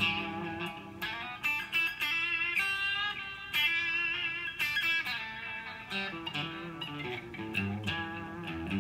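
Amplified Telecaster-style electric guitar playing a run of single picked notes, with notes ringing on, busiest in the middle.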